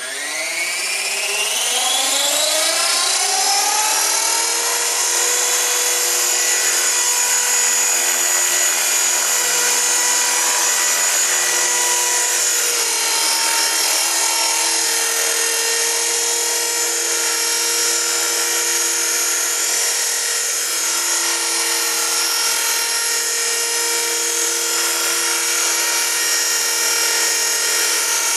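KDS 450 SV electric RC helicopter spooling up, its high whine rising in pitch over the first few seconds, then running at a steady head speed as it hovers low; the whine drops slightly in pitch about halfway through.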